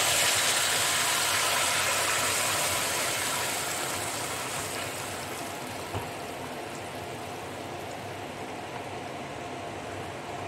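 Tomato purée sizzling as it hits hot oil and fried ginger-garlic in a kadai. The sizzle is loudest at first and dies down over several seconds to a steady, quieter bubbling hiss, with a single light knock about six seconds in.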